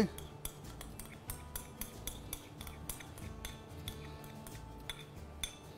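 A spoon clicking and scraping against a can and bowl as thick cream is scooped out: a run of light, irregular clinks. Faint background music underneath.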